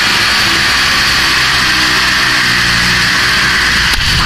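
Top fuel dragster engine at full throttle during a run, heard from the cockpit, holding a loud, near-steady pitch: the sound of the clutch slipping at high RPM on the way down the track.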